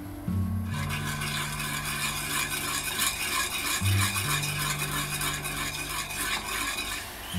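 Sugar, sake and mirin bubbling in an aluminium saucepan as the alcohol cooks off, a fast crackle of bubbles, while a spoon stirs through the liquid. It starts under a second in and stops just before the end.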